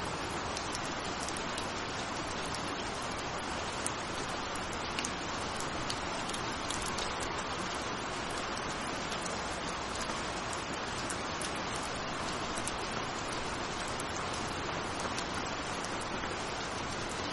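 Steady rain: a dense, even hiss of falling water with scattered sharper drop ticks.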